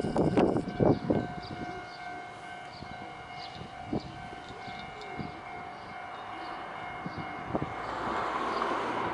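Six-car Kintetsu limited express electric train approaching from a distance at a crawl, held to a slow speed by a preceding train on the block ahead; its faint rumble swells toward the end over a steady high whine. A few loud low thumps sound in the first second.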